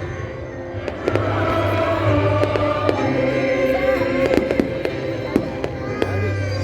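Fireworks going off in scattered sharp pops and crackles, the loudest about five seconds in, over a hymn being sung and played with long held notes.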